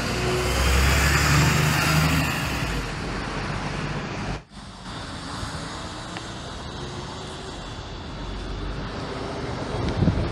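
City buses driving past at a street stop: a bus pulls away close by with a loud engine over its first couple of seconds, then, after a cut, an articulated bus approaches and passes, its engine and tyres growing louder near the end.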